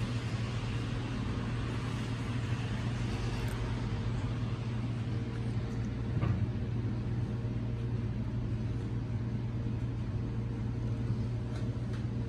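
Steady low mechanical hum with a faint higher steady tone over it, and a soft knock about six seconds in.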